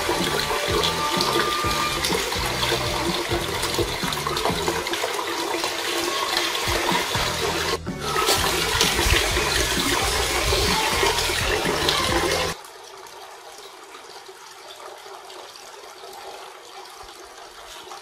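Water from a small cement tabletop fountain falling from a leaf-shaped spout into its basin, a steady loud splashing. About twelve seconds in it drops suddenly to a much quieter steady trickle.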